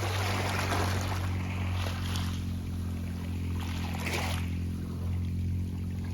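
Small sea waves washing up a pebble beach, each surge hissing and rattling through the stones, coming about every two seconds. A steady low hum runs underneath.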